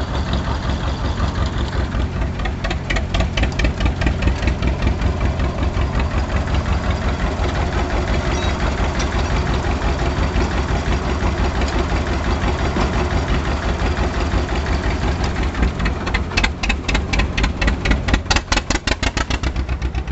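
John Deere 720's two-cylinder engine chugging with its even, pulsing exhaust beat as it works under load, pulling the sled down the dirt track. The beat sharpens about two seconds in and again near the end.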